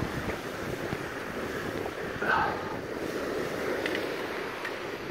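Steady wind noise and surf hiss, with a brief short sound about two seconds in.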